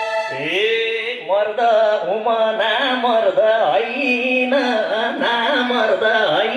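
A man singing unaccompanied into a microphone over a stage PA: a wavering, drawn-out vocal line in a dohori style, with the instruments silent.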